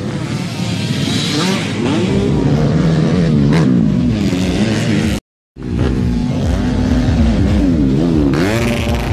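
Dirt bike engines revving hard as the bikes race past close by, the engine pitch rising and falling with the throttle. The sound cuts out completely for a moment about five seconds in.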